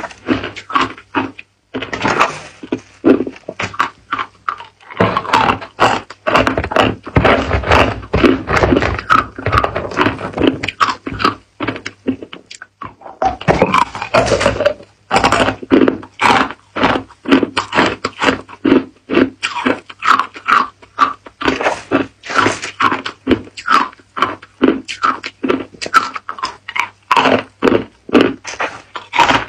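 Ice cubes being bitten and chewed: a dense run of sharp, rapid crunches and cracks, broken by short pauses about two seconds in and again about thirteen seconds in.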